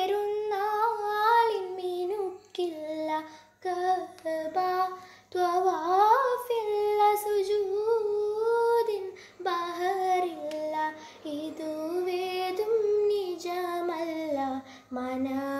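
A girl singing an Eid song solo, a single voice with long held notes that waver and turn in ornaments, broken by short breaths between phrases.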